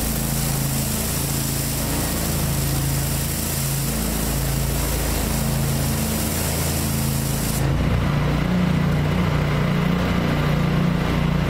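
Gas pressure washer engine running steadily while a rotary surface cleaner sprays across concrete with a loud hiss. About two-thirds of the way through, the spray hiss cuts off suddenly and the engine keeps running at a slightly higher pitch.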